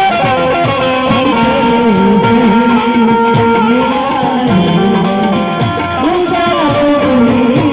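Live stage band music: a held, gliding melody over steady sustained notes, with repeated low drum strokes that drop in pitch.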